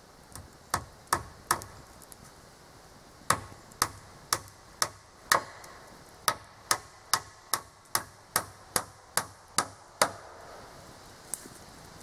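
Hammer driving nails into wooden boards: three blows, a short pause, then a long steady run of blows about two to three a second, some with a slight ring.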